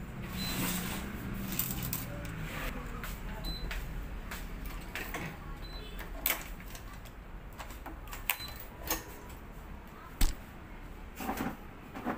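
Racket stringing on an electronic stringing machine: scattered clicks, knocks and rubbing as the string is pulled through the frame and the clamps are handled, with a few short high chirps early on and one sharp knock about ten seconds in, the loudest.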